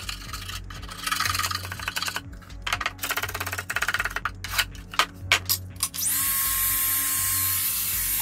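A hand tool scraping propolis off the wooden inside wall of a beehive box in quick irregular strokes. About six seconds in, a compact router switches on, spins up and runs with a steady high whine.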